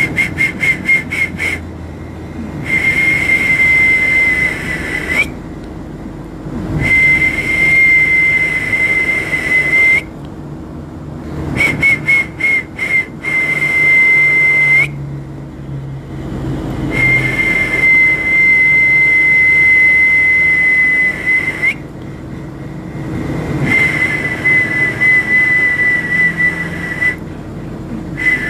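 A loud, steady, high whistled tone blown in about six long blasts of two to five seconds each, with a breathy hiss, separated by short pauses. A couple of blasts open with a quick run of short toots, and some end with a brief upward slide in pitch.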